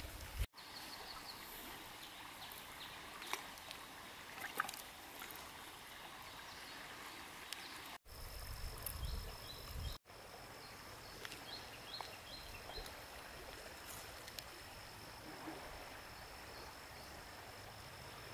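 Quiet riverbank ambience: a low even hiss with a few faint clicks and small splashes, broken by three brief drop-outs. From about eight or nine seconds in, a steady high thin whine runs on, with a quick series of short chirps a few seconds later.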